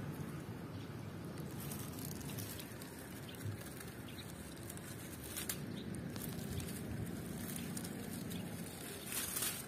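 Leafy vines and dry grass rustling as a hand pushes through them, with a few light crackles.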